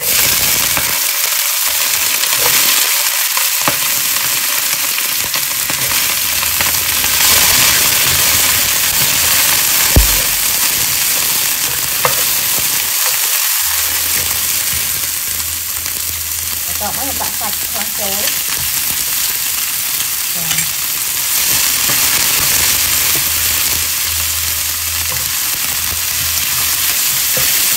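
Greens and bean sprouts sizzling in hot oil in a nonstick frying pan, starting suddenly as the greens are tipped in, and stirred with a spatula throughout. A single sharp knock about ten seconds in is the loudest moment.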